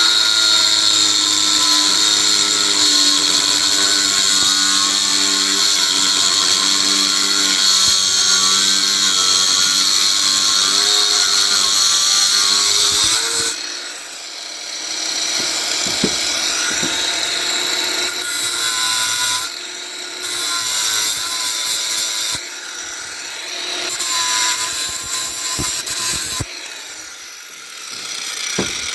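Handheld power tool cutting and grinding a cast bronze anvil, the sprues and rough edges being taken off. The tool runs steadily for about thirteen seconds, its pitch wavering under load, then stops suddenly. After that come shorter, quieter bursts of running with a few sharp clicks.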